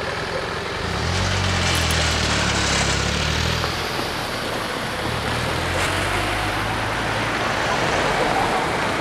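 Cars pulling away across a railway level crossing one after another, engines running under load and tyres rolling over the rails. Two cars pass close, about a second in and again about five seconds in.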